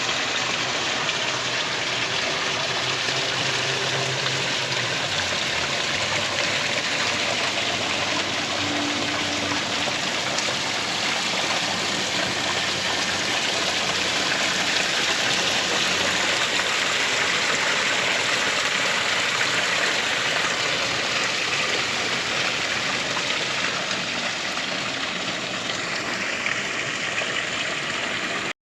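Steady rushing noise of water, like rain or a stream, with no rhythm or pauses.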